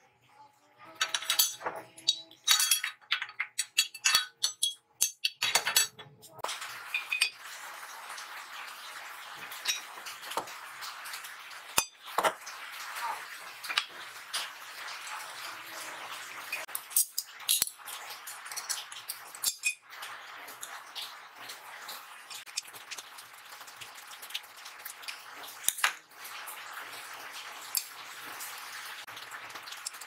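Hand tools and steel parts clinking and clattering on a metal workbench as a pipe clamp is fitted around fire-extinguisher tanks and its bolts are tightened. Sharp ringing clinks come in the first few seconds, then scattered clicks over a steady hiss.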